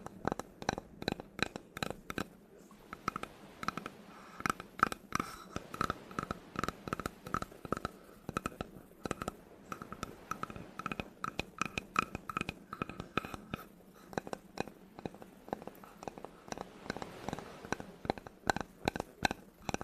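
Quick, irregular tapping on wood, several taps a second. Through the middle stretch the taps ring with a short hollow tone. Near the end the tapping gives way partly to scratching on the wood.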